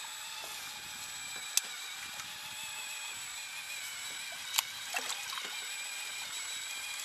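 Sea water lapping steadily around a small inflatable boat, with two sharp clicks about one and a half and four and a half seconds in and a few lighter ticks just after the second.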